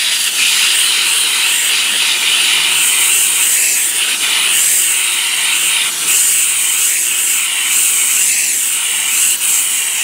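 McCulloch MC1375 steam cleaner with its nozzle head removed, jetting pure steam against a seatbelt so that it blows through the webbing: a steady, loud hiss.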